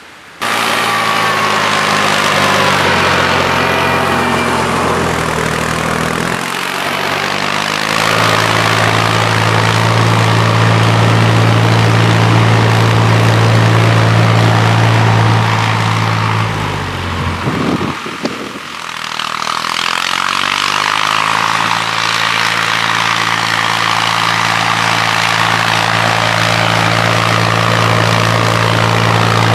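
Farm tractor engine running steadily as the tractor drives across a tilled field. The engine note starts abruptly, shifts pitch about a quarter of the way in, and dips briefly just past the middle before settling back to a steady run.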